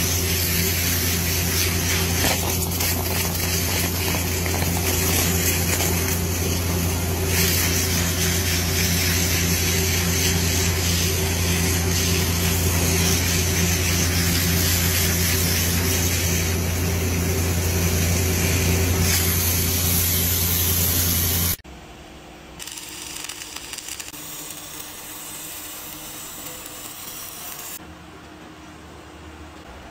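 Steady hiss of a high-pressure water jet blasting through soil, over the constant hum of the engine-driven pump that feeds it. About 22 seconds in it cuts off abruptly to a much quieter steady hiss from arc welding on a steel pipe.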